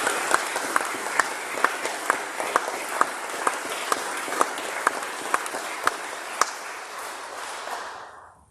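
A congregation applauding in a church. One person's claps stand out close by, about twice a second. The applause dies away near the end.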